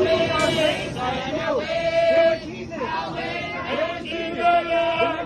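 A group of men and women singing together, holding long notes and sliding between them, with short breaks between phrases.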